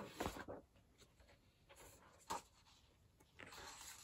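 Pages of a large paper photo booklet being handled and turned by hand: a few faint paper rustles and flicks, the loudest at the start, a sharp one a little past the middle and a longer rustle near the end.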